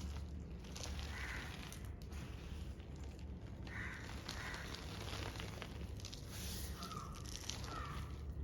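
Gym chalk powder being pressed and squished by hand, giving a soft, faint crackling.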